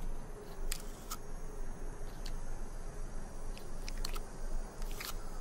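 Desert tortoise biting and chewing a prickly pear cactus pad: about seven crisp, irregular crunches over a steady low hum.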